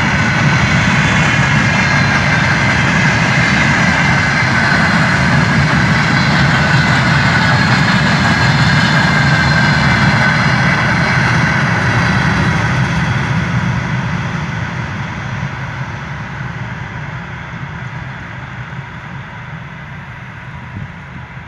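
Freight train of open gondola wagons rolling past: a steady clatter and rumble of wheels on rail with a thin high ringing tone above it. About two-thirds of the way in, the last wagon goes by and the sound fades away into the distance.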